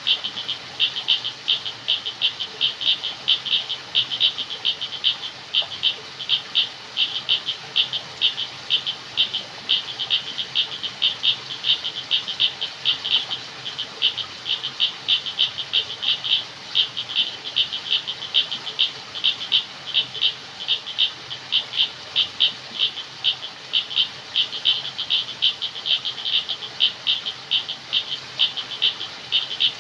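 Night chorus of calling frogs: short, high-pitched calls repeated several times a second in a steady, unbroken rhythm over a faint background hiss.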